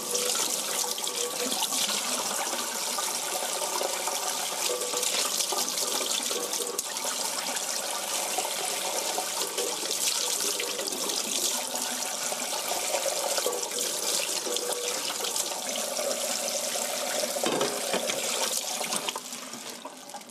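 Kitchen tap running into a stainless steel sink, the stream splashing over raw chicken pieces being rinsed by hand. The running water drops away near the end.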